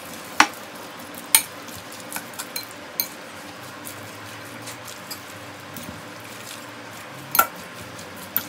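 Metal fork stirring and tossing shredded cabbage and carrot coleslaw with mayonnaise in a glass bowl, with sharp clinks where the fork strikes the glass; the loudest come about half a second in, at about a second and a half, and about seven and a half seconds in.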